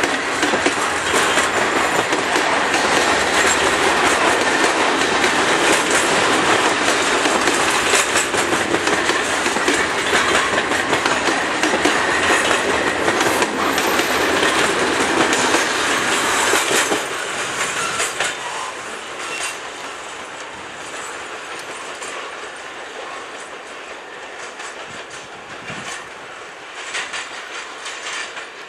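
Loaded container wagons of a freight train rolling past, their wheels clattering steadily over the rail joints with a rushing rattle. About seventeen seconds in, the noise falls away and stays lower, with a few scattered clacks.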